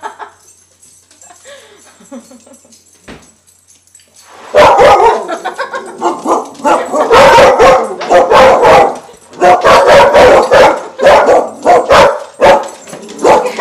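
Dog barking loudly and rapidly in repeated barks at a balloon, starting about four seconds in after a few seconds of faint sounds.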